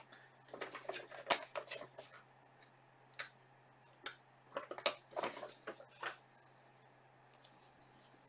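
Trading cards being handled and sorted through by hand: scattered soft rustles, scrapes and small clicks in a few clusters, over a faint steady hum.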